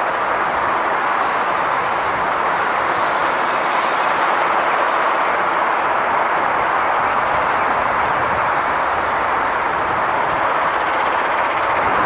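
Steady rushing noise of distant road traffic, with a few faint, short, high chirps from small birds over it.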